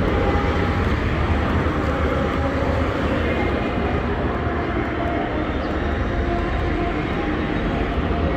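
Steady city street traffic: cars and minibuses passing on the road, a continuous engine and tyre noise with a heavy low rumble.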